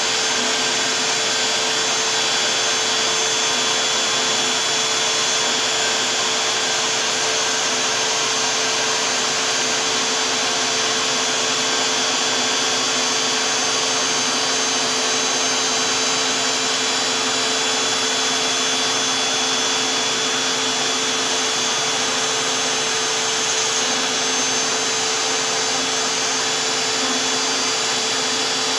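DeWalt 611 trim router on a LowRider 2 CNC running steadily as its single-flute 1/8-inch bit takes a full-depth 10.4 mm finishing skim cut through HDPE at a slow 8 mm/s feed. A steady whine sits over a dense hiss throughout.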